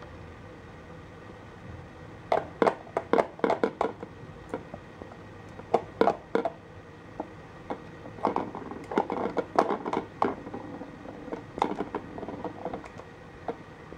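Plastic ball clattering and knocking around a Petstages Cheese Chase ball track as a kitten bats at it through the holes. Bursts of sharp clicks and rattles begin about two seconds in and come in uneven clusters through the rest.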